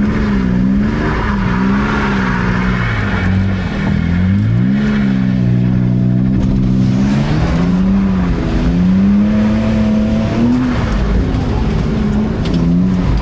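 BMW E46's engine revving up and falling back again and again under hard driving, with a steadier stretch about two-thirds of the way through before it climbs once more.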